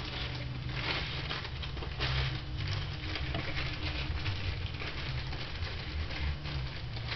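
Hands handling small parts: irregular light rustling and small clicks and taps.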